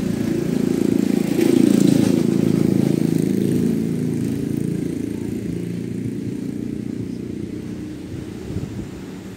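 An engine passing by: a low, pitched drone that shifts in pitch, loudest about two seconds in and then fading away.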